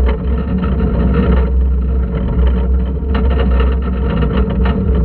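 A wooden roller coaster train running at speed along steel-capped track. Its wheels make a loud, continuous low rumble with frequent irregular clacks.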